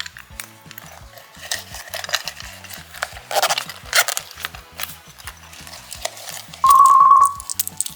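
Slime being stirred and squished, with small sticky clicks and crackles over background music. Near the end comes a short, loud, steady high tone lasting under a second.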